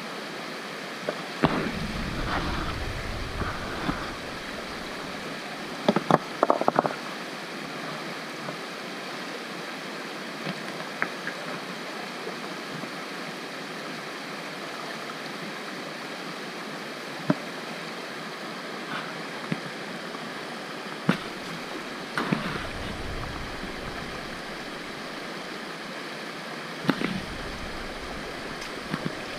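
Shallow rocky creek running steadily, with scattered sharp clacks and knocks of stones being moved in the water and a few short low sloshing rumbles.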